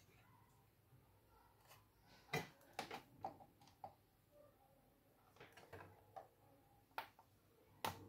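Scattered sharp clicks and knocks of a motherboard and a soldering iron being handled and set down on a workbench, the loudest about two and a half seconds in.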